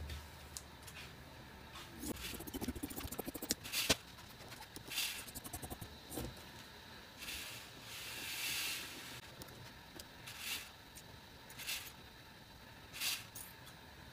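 Scissors cutting through dress fabric, with the cloth rustling and sliding on the table between cuts: a quick run of snips about two seconds in, then single snips and rustles spread through the rest.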